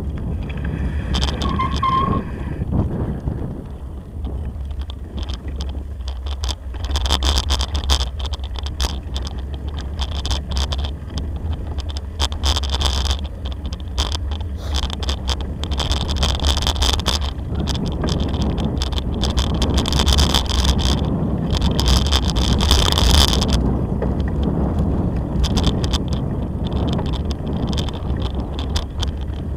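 Bicycle tyres rolling and crunching over a gravel and dirt track, with the bike rattling over the bumps and a constant low rumble underneath.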